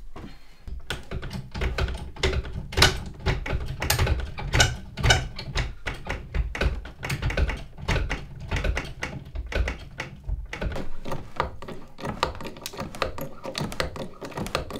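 A quick, irregular run of clicks, taps and knocks from hand work on a log wall, with a deeper rumble under them for about the first ten seconds. Near the end a hydraulic bottle jack's handle is being pumped to lift the logs.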